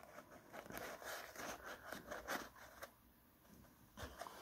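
Faint rustling and scraping of kitchen roll being pushed by fingers into a clear plastic tub, with small clicks and rubs of hands on plastic, pausing briefly about three seconds in.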